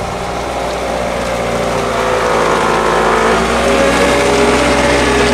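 Skid-steer loader's engine running as the machine drives up and passes close by, growing steadily louder with a slightly wavering pitch.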